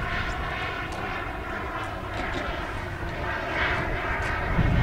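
Skymaster Viper model jet's EvoJet 90 turbine running steadily in flight, a whine made of many stacked tones. A low rumble grows near the end.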